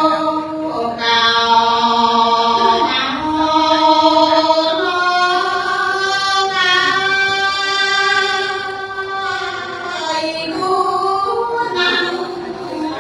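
A woman singing Khmer smot, the Buddhist chanted poetry, solo and unaccompanied: long held notes that step slowly from pitch to pitch, wavering on the sustained tones in the middle.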